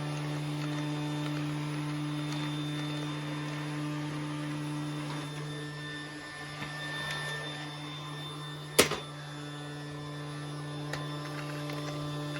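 A toy Hetty vacuum cleaner's small electric motor running with a steady hum, dipping slightly around the middle. One sharp knock about nine seconds in.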